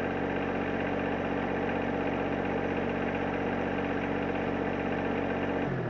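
John Deere 1025R's three-cylinder diesel engine running at a steady idle, cutting off near the end.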